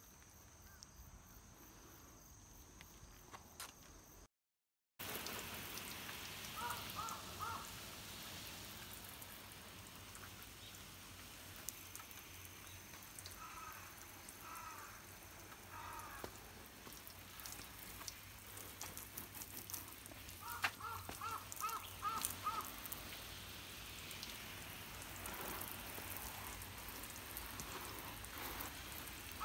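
Crows cawing in several short runs of three to six calls, over a steady hiss of water spray from a garden-hose nozzle wetting the car.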